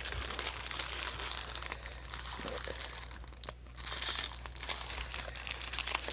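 Crinkling of a plastic candy wrapper being handled and torn open, with a brief lull about three and a half seconds in.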